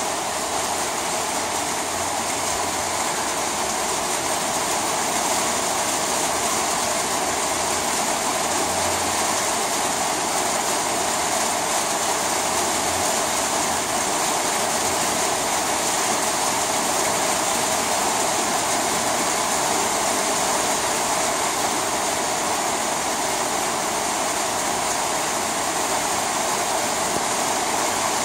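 Heavy rain drumming steadily on a corrugated zinc roof, a dense, even hiss of water on the metal sheets.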